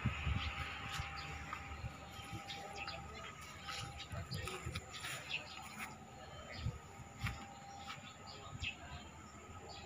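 Outdoor ambience with scattered short bird chirps and a faint steady background hum, broken by a few low thumps.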